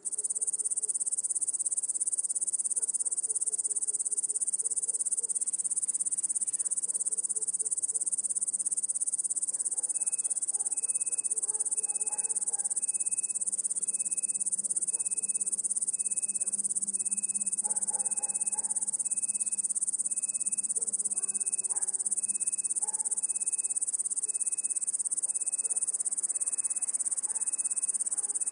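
Steady, high-pitched chorus of crickets. About a third of the way in, a faint, distant electronic beep starts, repeating roughly once a second. Far-off dogs bark now and then over a low road rumble.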